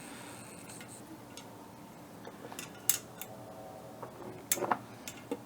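A few sharp, light metallic clicks and clinks, spaced irregularly and bunched near the middle and end, from hand tools or loose metal parts being handled.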